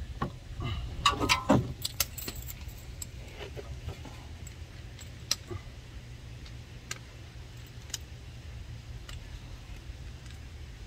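Metal hand tools and brake parts clinking as a socket and caliper hardware are handled: a cluster of clinks and knocks in the first couple of seconds, then single sharp metallic clicks every second or so.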